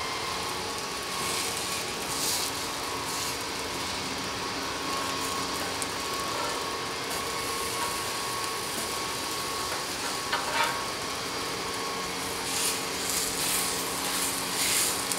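Steady sizzling of sausage patties on a gas-fired flat-top griddle, with a few brief clicks in the last few seconds.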